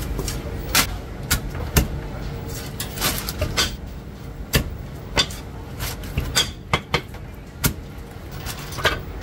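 Heavy cleaver chopping a roast pigeon on a wooden chopping block: about fifteen sharp knocks at an uneven pace, over a steady low hum of the shop.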